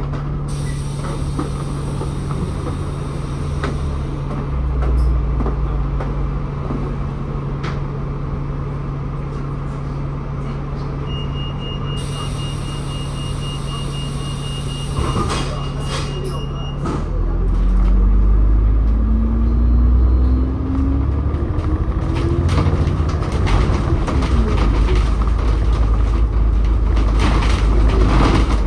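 Bus engine idling steadily, heard from on board, with a repeated high beep near the middle. About two-thirds of the way in the bus pulls away: the engine rumbles louder and its note rises as it accelerates, then settles into running.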